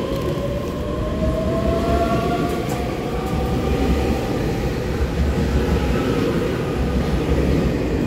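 A twelve-car EMU3000 electric express train pulling out and gathering speed, with a steady rumble under a whine that rises in pitch as it accelerates.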